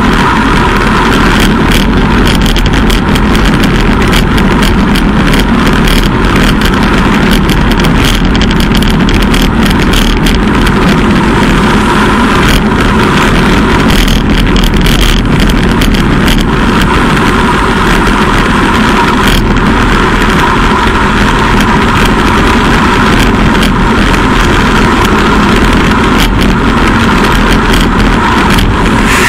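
Loud, steady wind rush over a bicycle-mounted camera's microphone while riding a road bike at about 50 km/h.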